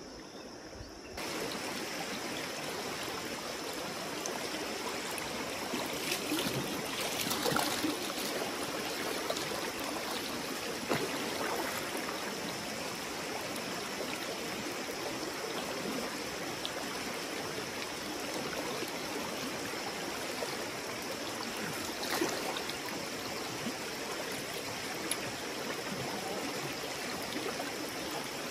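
River water running over stones, a steady rushing that gets louder about a second in, with a few brief clicks now and then.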